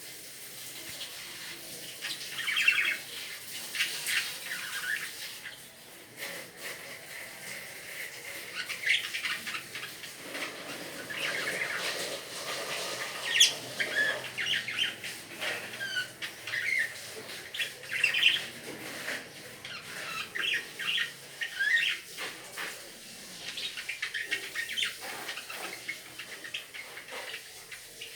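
Pet lovebirds chirping and squawking, a busy run of short, high calls scattered throughout with no steady rhythm.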